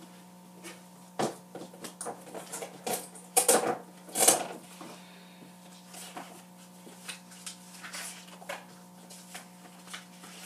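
Off-camera rummaging for supplies: scattered knocks, clatters and short rustles of objects being handled, loudest a little over three and four seconds in. A steady low hum runs underneath.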